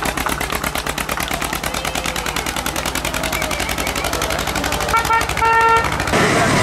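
Zetor 25K tractor's two-cylinder diesel running with a rapid, even exhaust beat. A horn-like tone sounds twice briefly about five seconds in, and near the end the sound gives way abruptly to a steadier engine.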